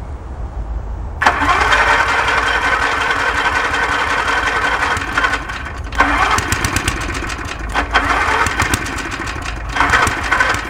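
Lawn mower engine being cranked on its electric starter, off jumper cables from a tractor, starting suddenly about a second in and coming in several bursts with short breaks, trying to start. A steady low engine rumble runs underneath.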